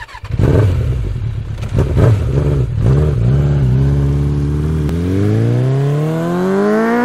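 Motorcycle engine revved in a few sharp blips, then running steadily, then accelerating with a long, even rise in pitch through the last couple of seconds.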